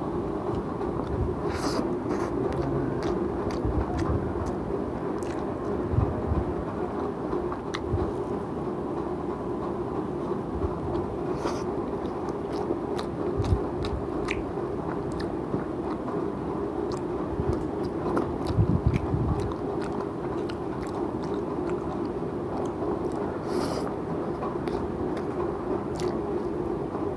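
A person chewing and biting food close to the microphone, with scattered small clicks of mouth and eating sounds, over a steady low background hum.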